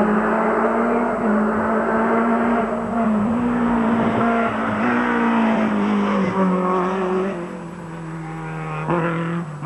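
Rally car engine driven hard through a bend, its note rising and dropping with each gear change as it passes close. It then fades as the car pulls away, with a short surge of revs near the end.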